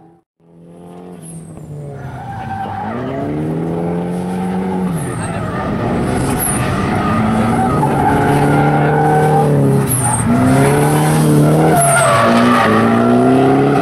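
Drift car engine revving hard, its pitch climbing and falling back several times as the throttle is worked, over continuous tyre screech from the sliding rear wheels. It starts after a brief gap and grows louder as the car comes closer.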